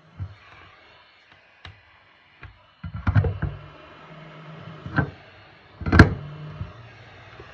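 JCD 8858 hot air gun handle being handled in its stand: a string of plastic knocks and clunks, a cluster about three seconds in and the loudest about six seconds in. A low steady hum comes and goes between the knocks.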